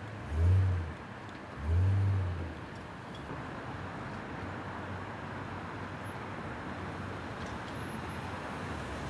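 Steady street noise with a low engine hum. Two brief, loud, low rumbles come in the first three seconds.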